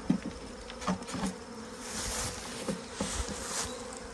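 Western honey bees buzzing in a steady hum around a just-emptied hive, with a few light knocks from the wooden hive box being gripped and lifted.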